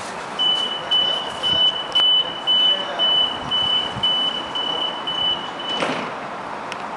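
Door-closing warning beeps of an Aeroexpress double-decker electric train (Stadler KISS): one high steady beep repeated about twice a second for around five seconds. A thud follows about six seconds in.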